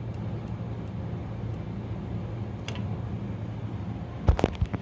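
A steady low hum with a few faint clicks, and a short low thud near the end.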